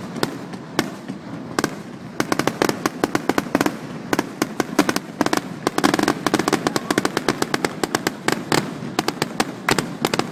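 Fireworks display going off: many sharp cracks and pops in quick succession, sparser for the first couple of seconds and then a dense crackling barrage.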